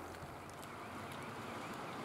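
Faint steady outdoor background hiss with a few scattered light clicks and faint chirps.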